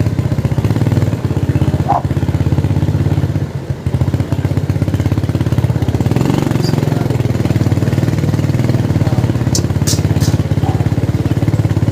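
Small motorcycle engine running steadily under way, with a rapid even pulse and a short dip in power a few seconds in. Three short, sharp high clicks come near the end.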